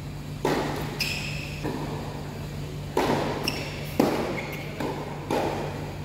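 Tennis rally in doubles play: about six sharp hits of the ball off racquets and the court, spaced irregularly about a second apart, each with a short echo, over a steady low hum.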